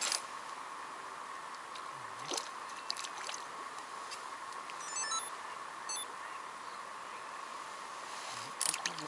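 Quiet outdoor hiss while a fish is played on a long float rod, with a few faint clicks and knocks of handling around two to three seconds in and again near the end. A short run of high chirps comes about five seconds in.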